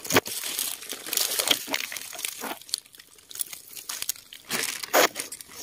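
Dry leaf litter crackling and rustling irregularly as it is disturbed, with a few louder crunches.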